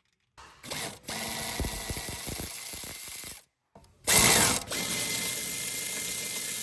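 A power tool with a 17mm socket runs in two separate stretches, unscrewing wheel bearing bolts with a thin steady whine. The loudest part is a short burst at the start of the second stretch, about four seconds in.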